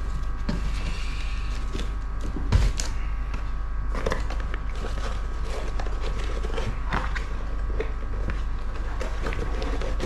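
Cardboard packaging handled: scraping and rustling as the inner cardboard insert is worked out of a reel box, with a single knock about two and a half seconds in. A steady faint hum runs underneath.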